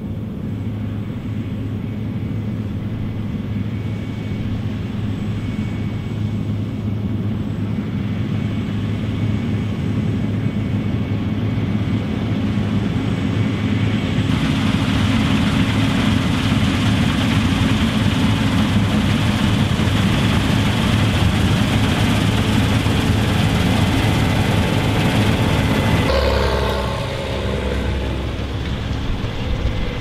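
A Case IH 8120 Axial-Flow combine harvester runs steadily while cutting and threshing rye, a constant engine drone under the noise of the machinery and crop. The sound changes in tone about halfway through and again a few seconds before the end.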